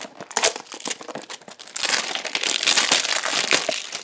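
Blind-box toy packaging being handled: a few light clicks and rustles, then a dense stretch of crinkling from about two seconds in to near the end.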